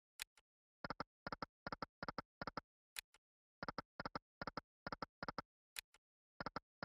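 Royal Secrets online slot game's reel-stop sound effect: short, sharp ticks, mostly in pairs, two or three times a second, as the reels land spin after spin.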